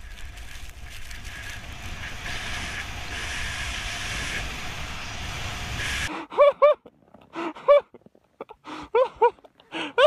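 Snowboard riding through snow: a steady rushing hiss and rumble of board on snow and wind on the microphone, which cuts off suddenly about six seconds in. Short, sharp pitched calls follow, several of them in pairs.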